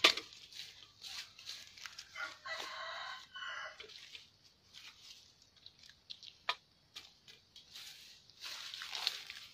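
A rooster crows once, about two seconds in, a pitched call of a second and a half that changes partway through. Around it are scattered clicks, scrapes and rustles of hands working the mud, leaves and a bamboo basket fish trap, with a sharp knock at the very start as the loudest sound.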